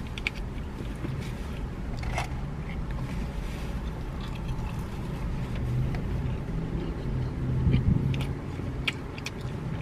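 A person eating fries: a ketchup packet bitten open near the start, then chewing with scattered small clicks and rustles of the paper fry carton, over a steady low hum inside a car.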